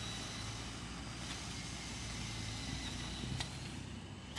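Small electric drive motors and gearing of a homemade RC tractor running steadily under load as it pushes dirt with its front blade, with a low hum and a faint high whine. A single sharp click about three and a half seconds in.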